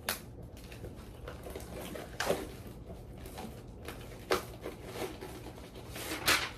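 Loose-leaf filler paper and a ring binder being handled: paper rustling, with four sharp knocks about two seconds apart.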